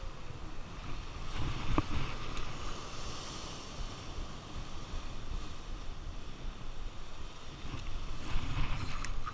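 Wind rumbling on the microphone over the wash of sea surf. There is a sharp click about two seconds in and another near the end.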